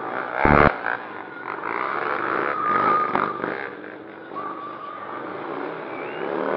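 Motorcycle engine running and revving up and down as the bike circles on the pavement, with a sharp thump about half a second in.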